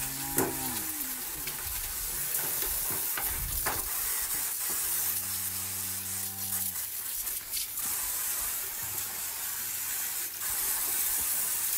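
A steady hiss, with a low droning hum twice (near the start and again about five seconds in, for about two seconds) and a few sharp clicks.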